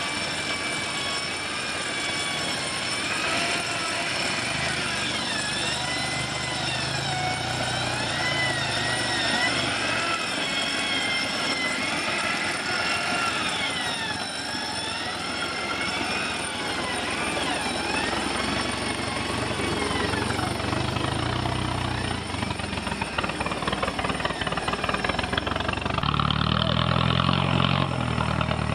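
Several motors whining, their pitch rising and falling again and again, over a low engine rumble that swells near the end.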